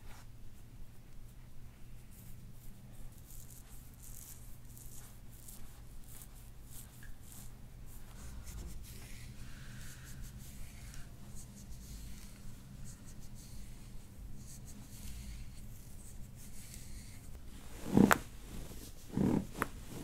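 Fingers rubbing through hair and over the scalp in a massage, a faint scratchy rustle over a low steady hum. Near the end a sudden loud crack, followed by two shorter thuds, from a side-lying chiropractic back adjustment on the table.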